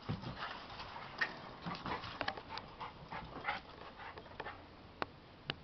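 A pet dog whimpering and yipping in a run of short sounds, then two sharp clicks near the end.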